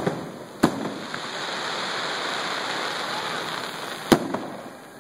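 Aerial fireworks shells bursting: a sharp bang just under a second in and a louder one about four seconds in, with a steady hiss between them.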